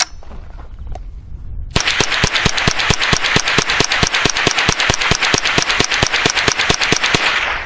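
Rock Island TM-22 semi-automatic .22 rifle firing CCI rounds in a fast, steady string. The shots start about two seconds in and stop just before the end. The rifle cycles every round without a stoppage on this ammunition.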